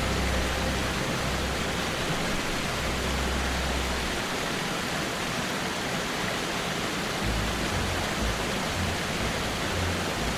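Steady rushing hiss of a waterfall, with low, deep music notes beneath that drop out for about three seconds in the middle.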